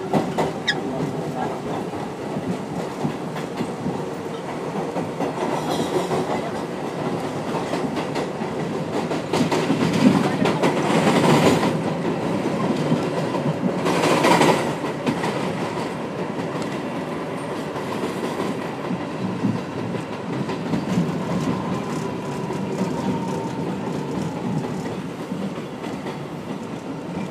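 Bombardier R62A subway car of the elevated 7 line heard from inside as it pulls out of a station and runs along the elevated track: a steady rumble with wheels clattering over the rail joints. Two louder rushes of noise come about ten and fourteen seconds in.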